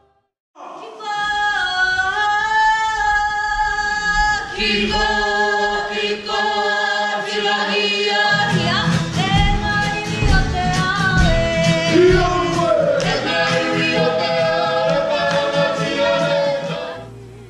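A group of voices singing a Māori song in harmony on stage. It starts about half a second in, a low held note joins, and a steady beat comes in about halfway. It fades just before the end.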